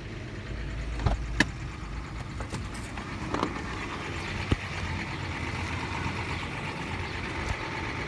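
Toyota 1GR-FE 4.0-litre petrol engine of a Land Cruiser Prado 120 running cold at around 1000–1500 rpm with a diesel-like rattle. The owner says the rattle goes away in Drive or above 1500 rpm, and its cause is undiagnosed. A few sharp clicks sound over it.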